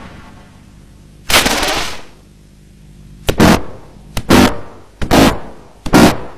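A run of sudden loud bang-like bursts at irregular spacing, some in close pairs, each fading within half a second.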